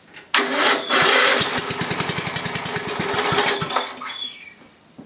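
1982 Briggs & Stratton 11 hp single-cylinder flathead engine, cold, catching suddenly and running with rapid firing for about three seconds, then fading and dying out about four seconds in. It won't keep running cold, and the owner answers by setting the carburetor richer, taking it to be running too lean.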